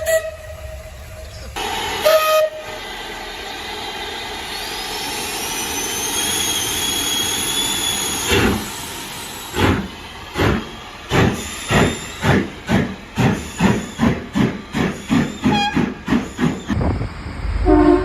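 Steam locomotive: a short whistle blast, then a long hiss of escaping steam, then exhaust chuffs that come steadily faster as it pulls away.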